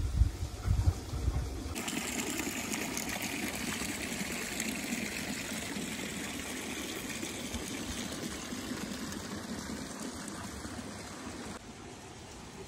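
Water pouring steadily from a small wall spout into a shallow stone water channel, a continuous splashing trickle that stops abruptly near the end. For the first couple of seconds, before it, a gusty low rumble of wind on the microphone.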